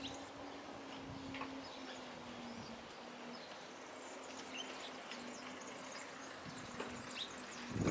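Eurasian tree sparrows chirping: short, high chirps scattered here and there over a faint steady low hum. A low thump near the end.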